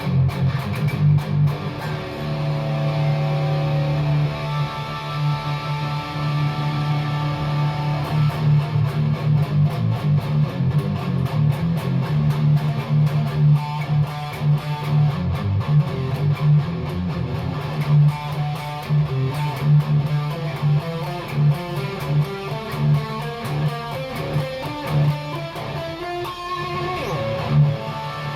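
PRS Custom 24 electric guitar being played continuously, a run of quickly picked notes and chords.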